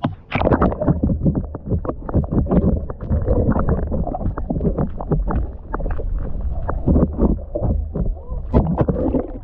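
Water sloshing and bubbling around a camera held under water: a muffled, low rumbling noise full of quick crackles and knocks, starting as the camera goes under.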